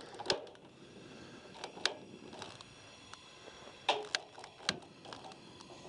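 Long-nosed lighter clicking repeatedly at a two-burner camp stove's burner, about six sharp clicks spaced unevenly, as it is used to light the burner.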